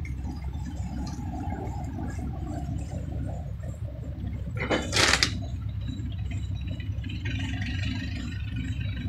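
Mobile crane's engine running steadily with a low rumble. About halfway through there is a brief, loud rush of hiss-like noise.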